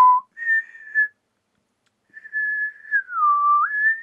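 A person whistling held notes: a short note ending just after the start, then a higher one, a pause of about a second, and a long high note that dips lower and rises back near the end.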